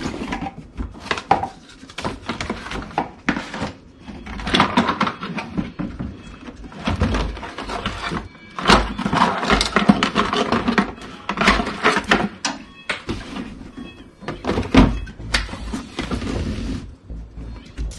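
Cardboard packaging being handled: a motherboard box slid out of its sleeve and opened, with rustling, scraping and a few dull knocks.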